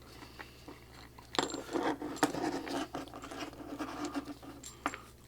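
Scratching and rubbing of coax cable being handled as heat shrink tubing and connector parts are slid onto it, starting about a second and a half in and ending with a sharp click.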